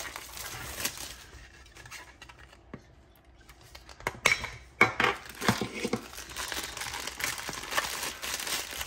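Metal pull-tab lid of a Funko Soda can being peeled open, with a few sharp metallic snaps a little over four seconds in. Then the black plastic bag from inside the can crinkles and rustles as it is handled.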